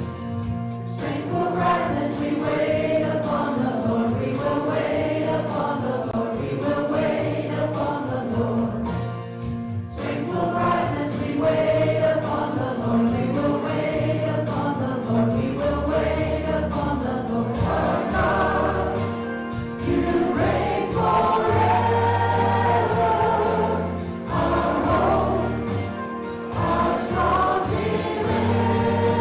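Live contemporary worship music: several voices singing together in phrases over a band accompaniment with steady, sustained bass notes.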